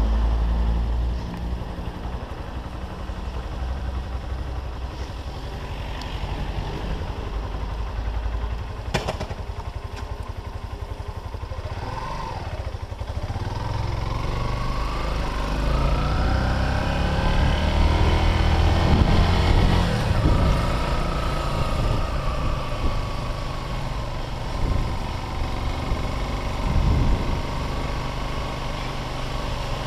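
Motorcycle engine running under way, with a low rush throughout. About halfway through, the engine note climbs for several seconds as it accelerates, then settles again. A single sharp click comes early in the ride.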